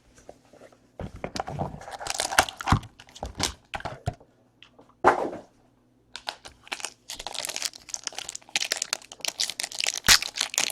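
Plastic wrapping crinkling and tearing in irregular handling bursts as a sealed trading-card box is opened, with a brief pause in the middle.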